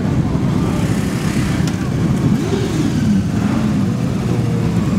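Motorcycle engines running as a column of bikes rides past, one engine's pitch climbing and falling about halfway through, with voices underneath.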